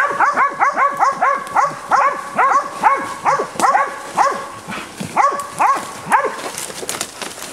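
Bay dogs barking steadily at a wild hog they have bayed, in quick short barks at about four a second. The barking stops about six seconds in.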